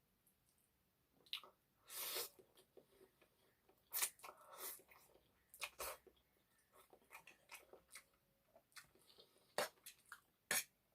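Close-miked eating of egg noodles with chicken curry: intermittent chewing and wet mouth sounds, broken by irregular sharp clicks.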